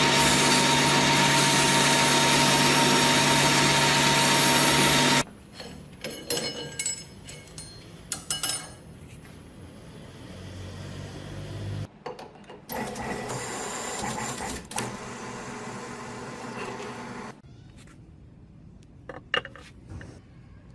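A power tool running steadily with a whine, cut off abruptly about five seconds in. Then scattered clicks and knocks of metal parts being handled, a quieter spell of machine noise, and a few sharp clicks near the end.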